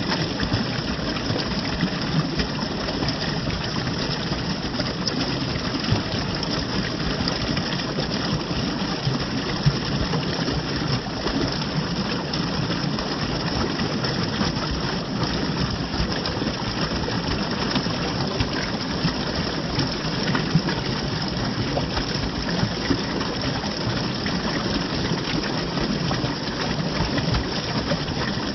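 Running water flowing steadily, a continuous even noise.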